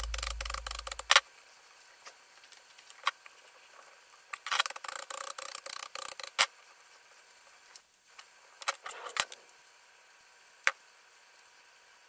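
Chef's knife chopping celery on a plastic cutting board: sharp knife taps, in a quick run about four seconds in and as scattered single knocks later. Background music fades out in the first second.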